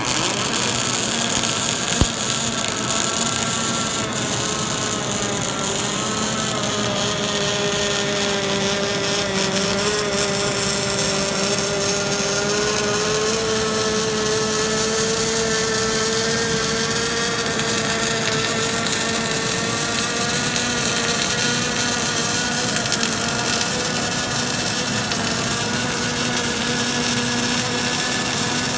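Robotic welding cell at work: a steady hiss over a machine hum whose pitch wanders slowly, with a single sharp click about two seconds in.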